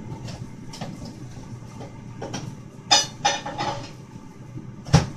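Kitchen dishes and utensils being handled: a quick run of clattering knocks about three seconds in, then one sharp, loud knock near the end.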